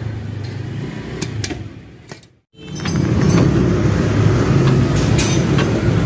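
Steady low rumble of a running vehicle engine, with scattered sharp metal clinks of tools on the leaf-spring fasteners. The sound drops out for a moment about two and a half seconds in, then the rumble comes back louder.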